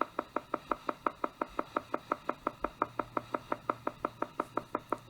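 Theta sound for meditation: a rapid, even pulsing tone, about seven short beats a second, steady throughout.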